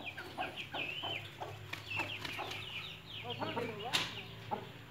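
Backyard chicks peeping over and over in short falling chirps, with a lower chicken call about three and a half seconds in and a sharp click about four seconds in.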